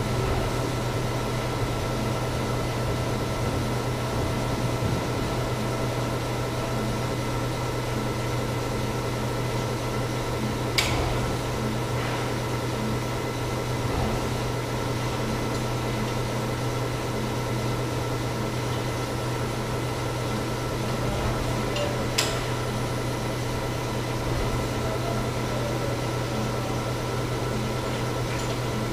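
Steady machinery hum with a few high steady tones over it, broken by a handful of sharp clicks or taps, the loudest near the middle.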